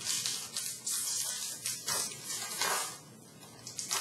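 Stack of 2016-17 SP Authentic hockey trading cards sliding against one another as they are flipped through by hand: a run of quick swishes over the first three seconds, quieter near the end.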